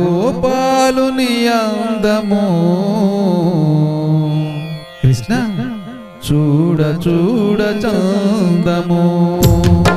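Instrumental interlude of a devotional bhajan: a melodic lead with bending, gliding notes over a steady drone. Sharp drum strokes come in near the end.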